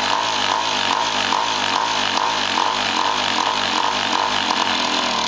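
Cagiva WMX 250 single-cylinder two-stroke engine idling with an uneven, rhythmic waver in its note, during carburettor adjustment. About five seconds in, the note drops and runs steadier.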